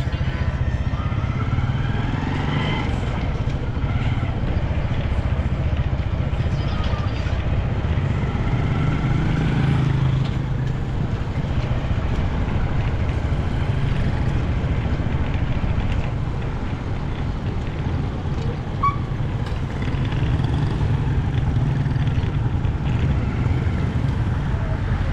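Steady low rumble of a vehicle on the move, its engine and road noise running throughout, easing off briefly about two-thirds in.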